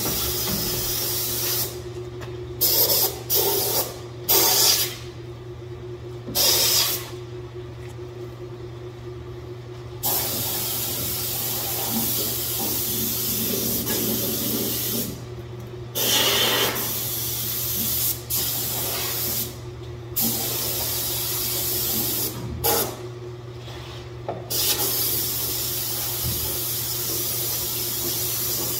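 Hose-fed undercoating spray gun hissing in repeated bursts as it sprays Krown rust-inhibitor oil onto a truck's underside, the trigger squeezed and released with short pauses between, the longest about three seconds. A steady low hum runs underneath.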